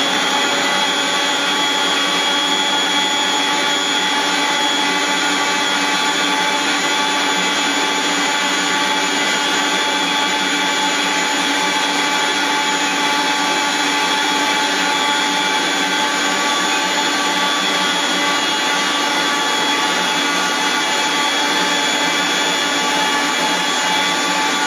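Household stand mixer running at top speed, kneading a very wet 100%-hydration pizza dough to develop the gluten: a steady motor whine with many overtones.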